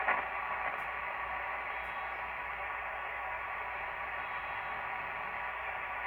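Steady radio static hiss from an SDR receiver tuned to the 11-meter CB band on sideband, heard through a speaker, with no station coming through. A short louder burst of noise opens it, then the hiss stays even.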